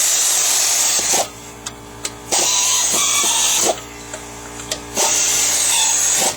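Three loud bursts of hissing air, each a little over a second long, from a pneumatic air tool such as an air gun worked in short pulls.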